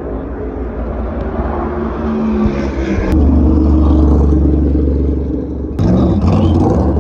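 NASCAR Cup cars' V8 engines running at low speed as the cars roll past close by. The sound swells about three seconds in as one car comes alongside, and a second car follows near the end.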